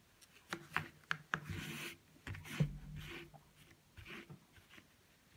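Plastic weaving needle and wool on a cardboard loom: a few light clicks as the needle and fingers catch the taut warp strings, then soft rubbing swishes as the wool is drawn through them.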